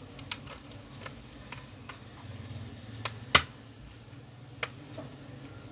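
Sharp, irregular clicks and snaps as the back cover of a Samsung Galaxy Tab A 10.1 is pried open along its seam with an opening tool, the case clips popping loose one after another. The loudest snap comes a little over three seconds in.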